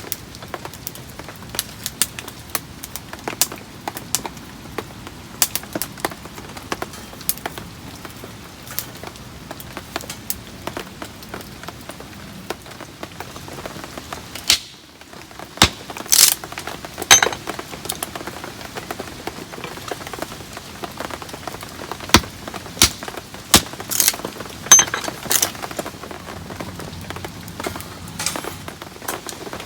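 Heavy rain falling as a steady hiss, with frequent irregular sharp taps of drops, louder and denser in the second half; a brief drop-out about halfway through.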